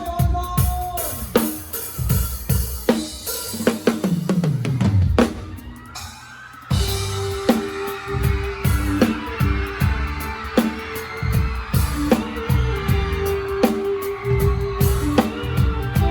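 Live drum kit close up with the band: kick, snare and rimshot strokes and fills for the first five seconds, a short drop, then the full band comes back in with the drums keeping the beat.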